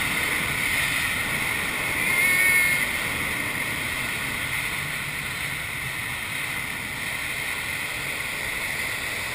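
Steady rush of air streaming over a glider's canopy and fuselage in gliding flight, with no engine. A brief high whistle rises out of it about two seconds in.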